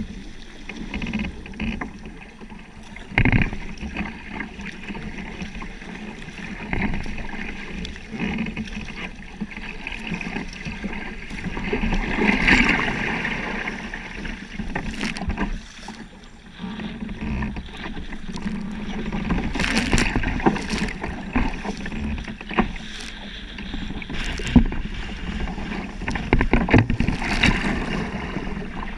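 Kayak on choppy water in heavy wind: water splashing and slapping steadily, with irregular sharper splashes.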